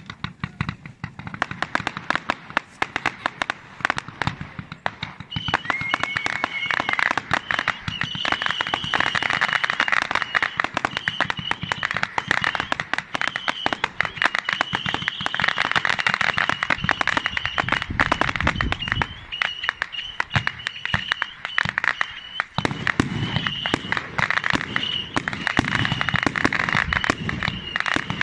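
Fireworks display: dense, rapid crackling with deeper bangs throughout, and a high steady whistle coming in about five seconds in that breaks off and resumes.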